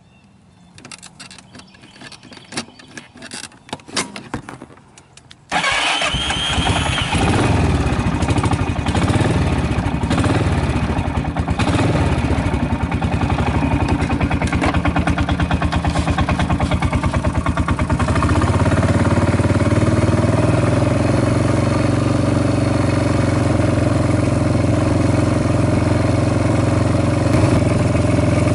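ATV engine being started: a few seconds of clicks and knocks from handling the controls, then the engine catches about five seconds in and runs at idle. From about two-thirds of the way through it runs louder and steadier as the ATV sets off along the trail.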